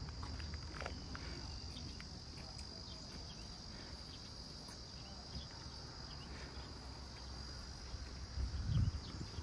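Insects chirring in one steady, high, unbroken tone over a low background rumble. A dull low thump sounds near the end.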